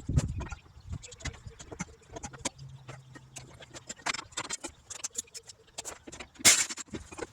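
Irregular clinks and knocks of hand tools and parts on metal while suspension parts are worked on, with one louder, rushing clatter about six and a half seconds in.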